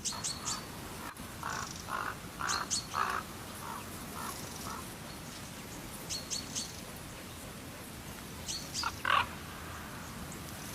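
Wild birds calling: quick runs of three or four short, high chirps recur several times, mixed with lower, shorter notes, the loudest about nine seconds in.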